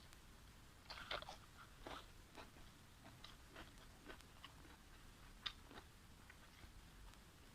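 Faint close-up chewing, a person eating with scattered soft mouth clicks and smacks.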